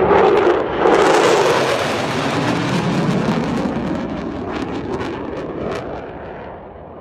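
Fighter jet roaring past, loudest about a second in, then fading away steadily as it recedes.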